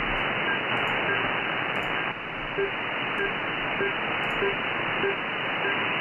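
Shortwave receiver audio from an RSP1A software-defined radio: steady hissing static with a faint unidentified data signal in it, short beeps repeating about every 0.6 s, which the operator takes for a possible Link 11 transmission.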